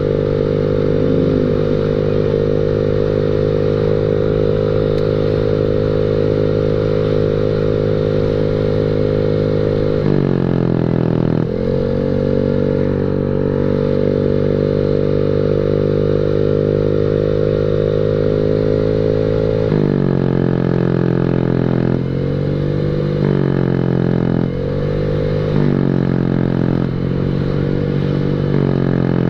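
Honda Beat scooter's single-cylinder engine running loud through a WRC 'mber' racing exhaust, held at steady throttle while riding. Its note drops and climbs back as the throttle is shut and reopened, once about ten seconds in and several times in quick succession over the last ten seconds.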